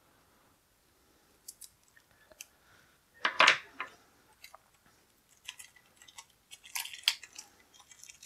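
Plastic wrapping on a deck of game cards being opened by hand, crinkling and crackling, with one louder burst a little over three seconds in and a cluster of crackles near the end.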